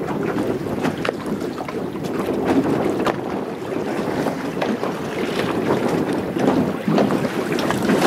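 Wind buffeting the microphone, with small waves slapping against the hull of a drifting fishing boat in short, irregular knocks.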